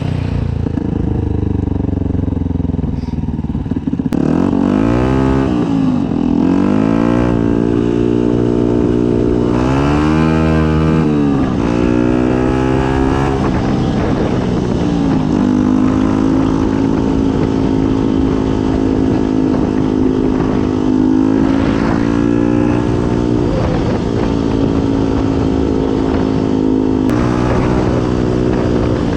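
Yamaha WR125's single-cylinder four-stroke engine through a Black Widow aftermarket exhaust, ridden under way: the revs climb and drop twice, then hold steady for a long stretch with a couple of brief dips.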